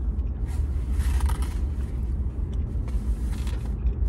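Steady low rumble of a parked car, heard from inside its cabin, with chewing sounds coming and going over it.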